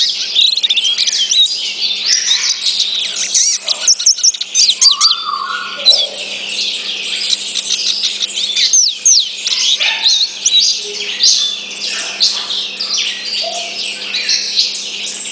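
A caged dominico capita negra (black-capped goldfinch) singing a long, fast, twittering song of rapid chirps, trills and high sweeping whistles with hardly a pause, with a few lower whistled notes mixed in. A faint steady low hum runs underneath.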